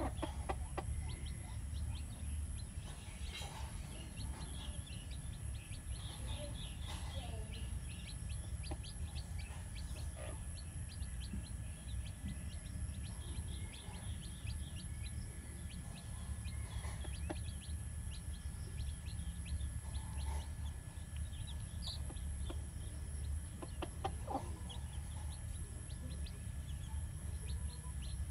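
Domestic hen clucking now and then while her chicks peep over and over in short high notes, over a steady low rumble.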